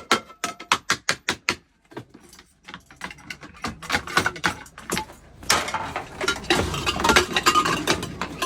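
Rapid mechanical clicking and clattering: a quick run of sharp, evenly spaced clicks at first, a brief lull, then denser clattering that grows louder through the second half.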